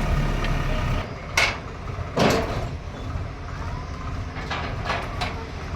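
Combine harvester engine running with a steady low rumble, with several brief swishing noises over it.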